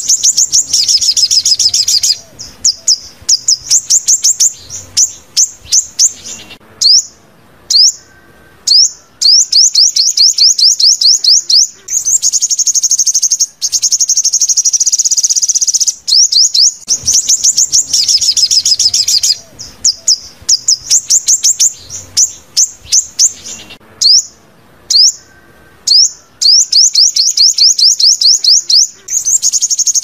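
Recorded sunbird song played as a lure: loud, rapid trills of quick downward-sweeping high notes, broken by short pauses with a few single notes. The same sequence comes round again about halfway through, as a loop.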